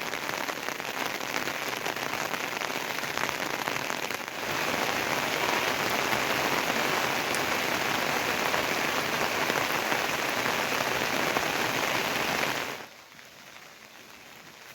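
Heavy rain falling, a dense steady hiss of drops on surfaces. It grows louder about four seconds in and falls away to a much lighter rain sound near the end.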